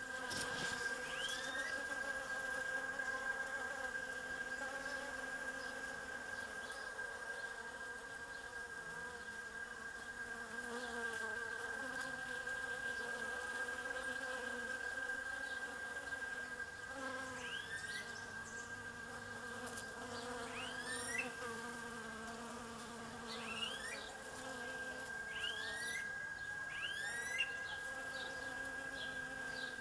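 Many bees buzzing around a flowering tree: a wavering drone with a steady high whine under it. From just past the middle, short rising bird chirps come in again and again.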